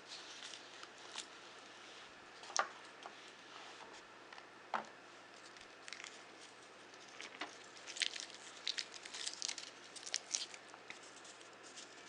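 Close handling noise of a wristwatch and its packaging: a few isolated sharp clicks, then a denser run of small clicks and crinkling from about eight seconds in.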